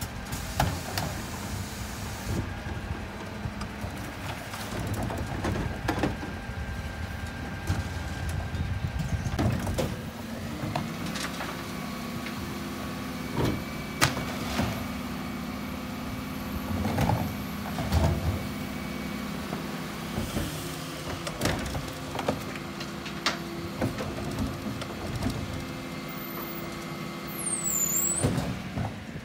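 Dennis Elite 6 refuse truck running at the kerb while its Terberg OmniDEL bin lifter works, with a steady mechanical hum and whine through the middle part. Plastic wheelie bins rattle as they are wheeled up, and there are sharp knocks and clatters as bins are hooked onto the lifter, lifted and tipped into the body.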